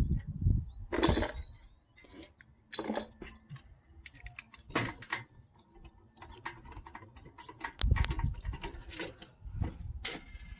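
Small metal parts of a new RV door lock set clinking and rattling as they are handled and sorted, in scattered short bursts.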